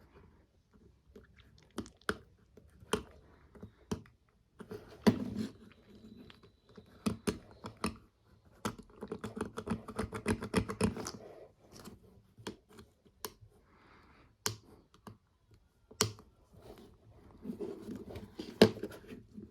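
Irregular clicks, taps and short scrapes of a Nokia Asha 302 mobile phone's small plastic parts being handled and worked on, with a dense run of rapid ticks about halfway through.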